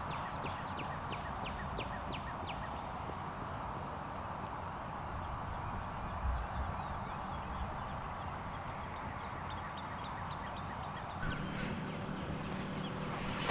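Birds calling: a quick series of falling chirps, several a second, strongest in the first few seconds and then fading, with a high buzzy trill around the middle, over a steady background hiss. A brief low thump about six seconds in.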